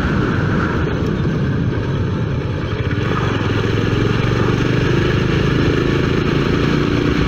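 Motorcycle engine running steadily with a low, even hum as the bike is ridden along.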